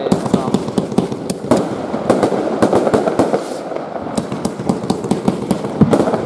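Heron Cake 35-10 fan firework battery firing: a rapid, irregular run of bangs as shots launch and shells break in the air, over a continuous crackle.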